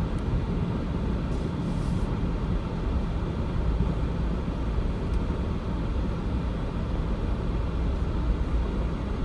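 Idling vehicle engine giving a steady low rumble that does not change.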